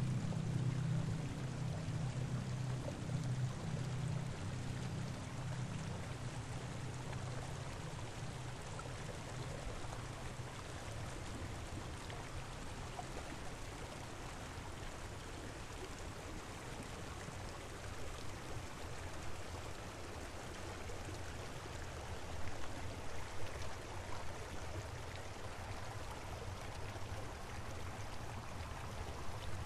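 Steady rushing water of a mountain stream, an even hiss, with a low rumble that is strongest at the start and fades over the first several seconds.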